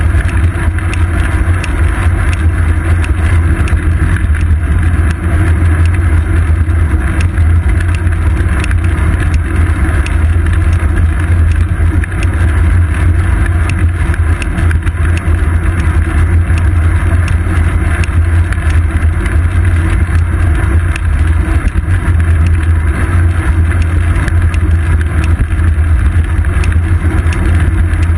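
Steady, loud rumble of wind and road vibration picked up by a GoPro Hero 2 clamped to a moving bicycle's seat post.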